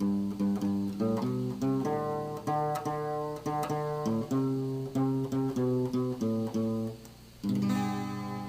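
Acoustic guitar playing a song's introduction, picked and strummed chords moving along briskly. A short pause near the end is followed by a chord left ringing.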